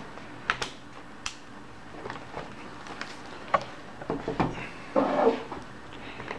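Battery being fitted into an MSI laptop: a series of sharp plastic clicks and knocks, with a short rubbing sound about five seconds in.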